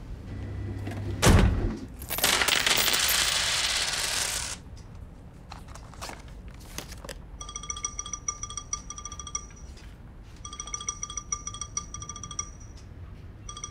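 A phone ringing with a trilling electronic ringtone, in bursts of about two seconds with short gaps, starting about halfway through. Earlier there is a heavy thud about a second in, then about two seconds of loud rushing hiss.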